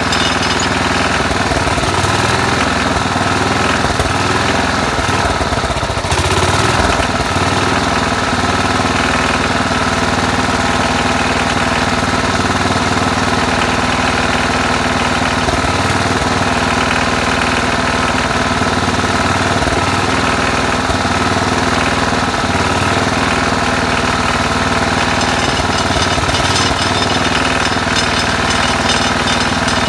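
Single-cylinder cast-iron Tecumseh HH120 engine of a 1968 Sears Suburban 12 garden tractor running steadily with a loud, even chugging.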